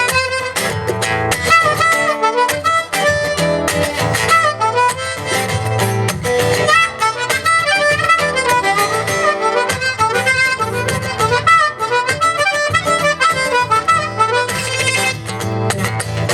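Instrumental break of a live song: a harmonica playing a melody over strummed acoustic guitar chords.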